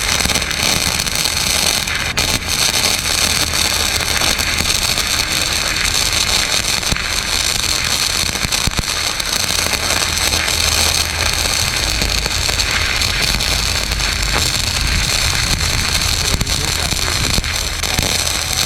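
Small electric welder's arc crackling and sputtering steadily through one long weld, stopping abruptly near the end.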